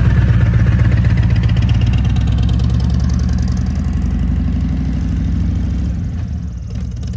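Harley-Davidson touring motorcycle's V-twin engine running with an even, pulsing beat as the bike pulls away and rides off, fading as it goes.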